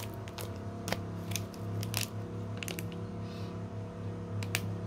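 Foil seasoning sachet being torn and handled: a few sharp crackles of the foil, over a steady low hum.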